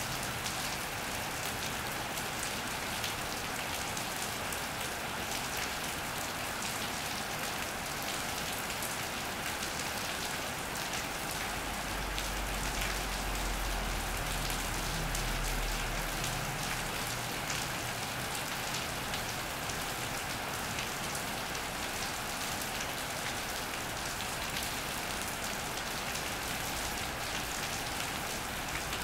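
Steady rain pattering on an iron roof and wet paving, with a dense hiss of drops and fine individual drip ticks. A low rumble swells underneath for about five seconds near the middle.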